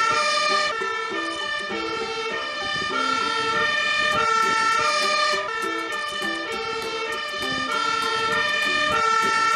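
Two-tone siren of a Magirus aerial-ladder fire engine, its steady notes alternating in pitch about every half second.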